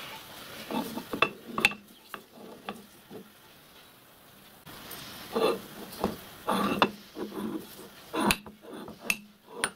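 Machined cast iron locomotive cylinder blocks being handled and set down on steel workholding: a string of separate metallic clinks and knocks, with a few short scrapes as the blocks slide.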